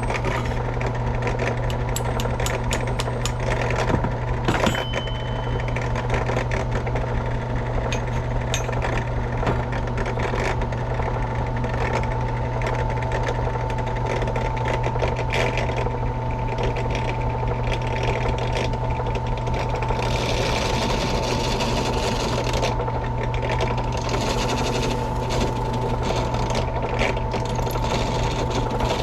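A small machine motor running steadily with an even hum, with scattered light ticks and scraping over it.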